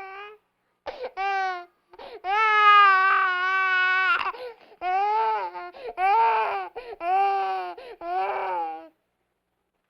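Infant crying in a run of high-pitched wails, a long drawn-out one about two seconds in followed by several shorter sobbing cries, stopping about a second before the end.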